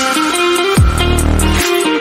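Electronic dance music with a heavy bass and a plucked melody. A deep bass note slides down in pitch a little under a second in, then holds.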